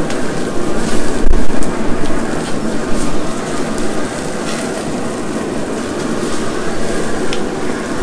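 A grease fire flaring up in a Recteq RT-B380 Bullseye pellet grill, flames burning and crackling with a steady rushing noise. A few sharp clicks sound over it, with a heavy low thump about a second and a half in.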